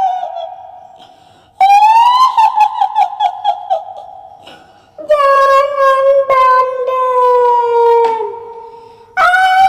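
Kuntilanak ghost voice effect: a high-pitched woman's voice wailing and cackling. It comes in three phrases: a rising cry that breaks into a quick trilling laugh, then a long wail that slowly falls in pitch, then a new cry near the end. Each phrase fades away slowly in a long echo.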